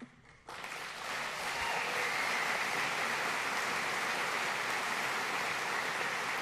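Audience applauding, starting abruptly about half a second in and then holding steady.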